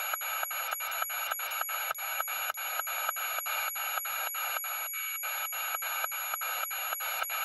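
Spirit box radio sweeping through stations: a steady band of radio static chopped by rapid even clicks, about four a second.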